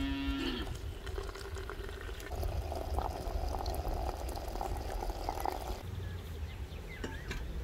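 Hot water pouring into a glass teapot over loose tea leaves, a filling sound that stops after a few seconds. A cow's moo trails off at the very start, and a short bird chirp comes near the end.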